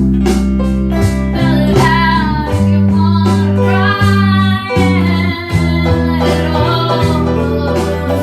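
A song with a singing voice over guitar, bass and a steady drum beat.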